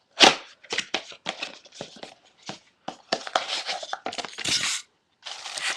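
Packaging of a camera lens box being torn open and handled: irregular tearing and crinkling rustles. There is a sharp tear just after the start, and longer stretches of rustling in the second half.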